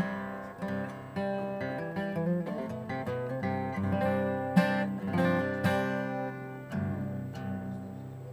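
Acoustic guitar being strummed and picked, chords struck about once a second and left to ring. Near the end one note slides in pitch as a tuning peg is turned, the guitar being tuned up.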